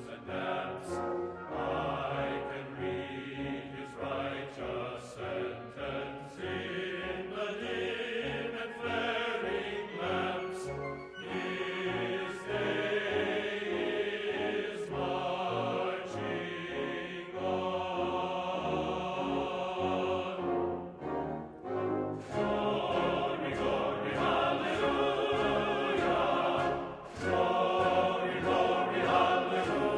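Background music with a choir singing over orchestral accompaniment.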